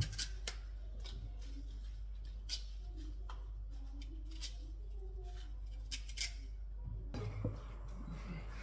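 Scattered light clicks and scrapes of kitchen utensils over a steady low hum, with a soft hiss coming in about seven seconds in.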